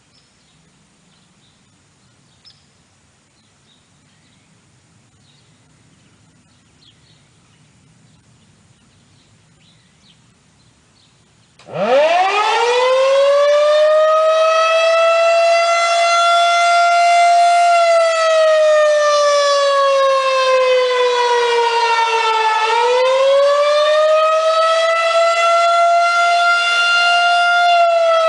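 Federal Signal 2001-130 rotating electromechanical outdoor warning siren starting up about twelve seconds in after faint outdoor quiet. It winds up quickly from a low pitch to a loud, steady high tone. Its pitch then sags slowly for a few seconds and climbs back up again.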